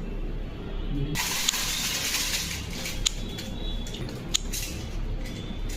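Water running from a tap in a steady hiss that starts suddenly about a second in and eases off after a couple of seconds, with three sharp clicks along the way.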